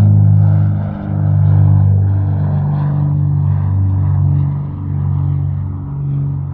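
Propeller aircraft engine droning, a deep steady hum that swells and dips every second or so, fading away toward the end as the plane moves off.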